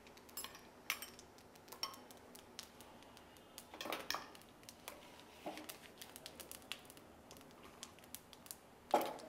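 Fennel seeds frying in hot coconut oil in a steel pan: faint, scattered crackles and pops, with a few louder ones about a second in, around four seconds and just before the end.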